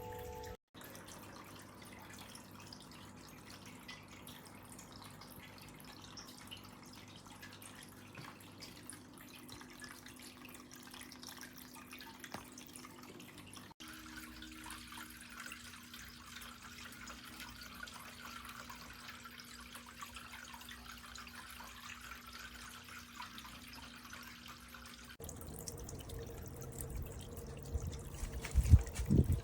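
Tiered pagoda garden water fountain trickling and dripping steadily, in three short takes cut together. A few low thumps near the end.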